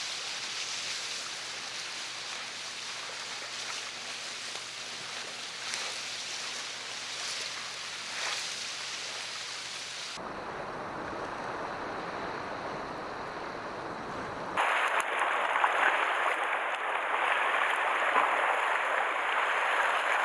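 Sea waves washing against shore rocks, a steady hiss of surf. The sound changes suddenly about ten seconds in and again about fourteen seconds in, and is louder after the second change.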